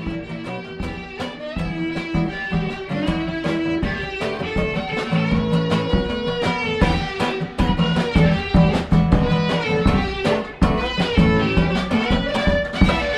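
Acoustic guitar strumming in a steady rhythm, with an electric violin playing long held notes over it; instrumental, no singing.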